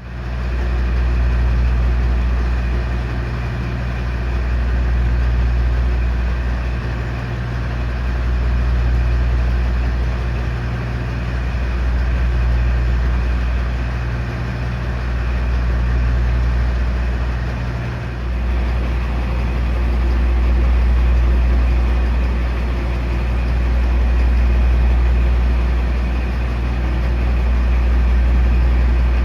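Diesel engine of a JR Shikoku KiHa 40/47 railcar running steadily with a deep, unchanging hum that swells and fades in loudness every few seconds.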